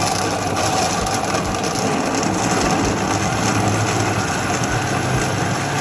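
Countertop blender running steadily, its motor whirring as it purées a liquid mixture.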